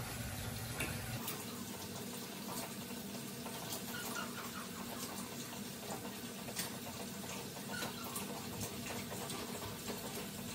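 Bath bomb fizzing in a tub of water: a soft, steady hiss scattered with many small bubble pops and crackles.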